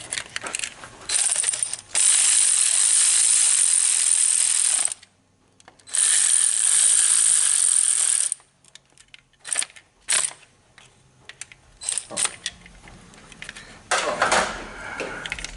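Ratchet wrench running in the bolts that hold a transmission's internal wire harness and speed sensors, in two long steady runs of a few seconds each, followed by scattered clicks and light knocks of the tool and bolts.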